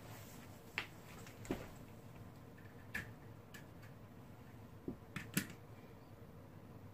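A handful of faint, sharp plastic clicks and taps, with a quick cluster of three about five seconds in: a Lego semi-truck being picked up and set down on the layout.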